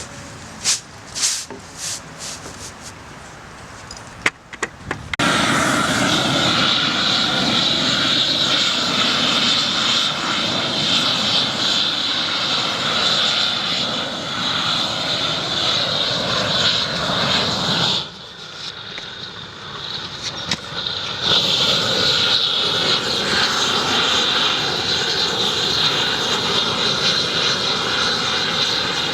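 A few sharp knocks, then a loud, steady engine-like drone sets in. The drone drops away for a few seconds about two-thirds through and then comes back.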